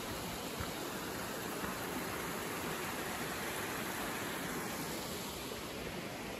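Steady rushing of a mountain stream, an even, unbroken noise.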